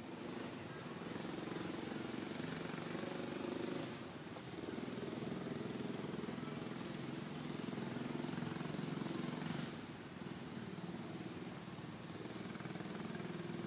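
A small engine running steadily in the background, a low hum that dips briefly about four seconds in and drops back near ten seconds.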